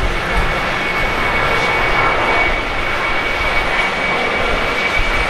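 Japan Airlines Boeing 767-300's twin jet engines running as the airliner rolls along the runway: a steady jet roar with a steady high whine over it.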